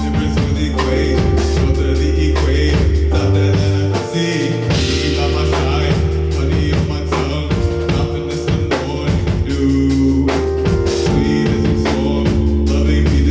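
Live rock band playing an instrumental passage: drum kit keeping a steady beat under long, held low bass notes. About four seconds in the bass drops out briefly and a cymbal crash rings over it before the band comes back in.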